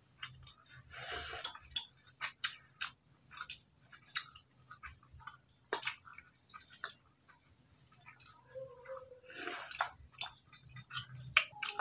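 People eating rice and curry by hand from steel plates: chewing, fingers mixing rice, and scattered small clicks and clinks of steel dishes, with a few short scrapes.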